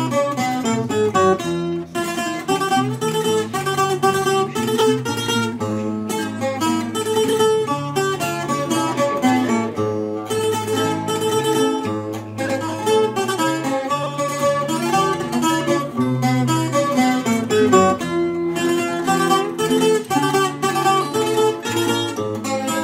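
Instrumental music on plucked and strummed string instruments, guitar-like, playing without pause.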